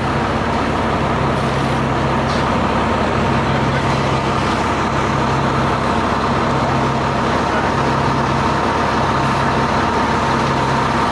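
Fire engine's diesel engine running steadily at a constant speed, driving its pump to feed charged hose lines, with a constant hum over the low engine drone.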